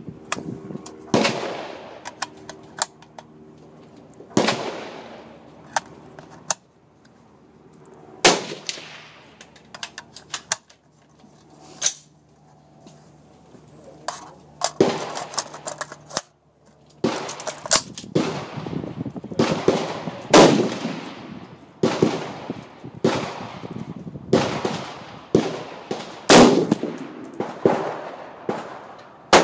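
Gunshots at a shooting range, each a sharp crack with a trailing echo. A few scattered shots come first, then a quicker run of shots from about halfway through.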